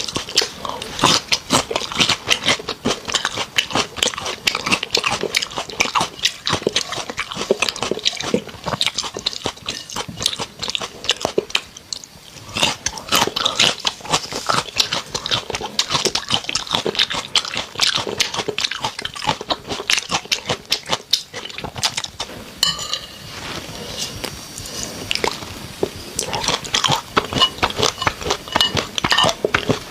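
Close-miked eating of raw shrimp: steady wet chewing and biting with quick crunchy clicks, easing off briefly about twelve seconds in and again around twenty-one seconds.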